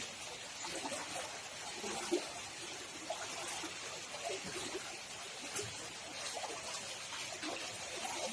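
Floodwater running steadily, an even rushing of flowing water.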